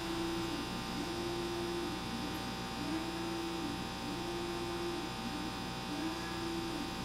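Steady electrical hum, with a slightly higher hum tone that fades in and out several times.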